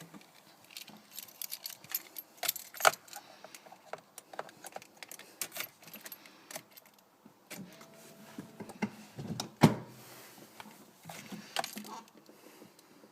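Keys jangling with a run of sharp clicks and rattles, a short steady tone about eight seconds in, and one heavy thump a little under ten seconds in.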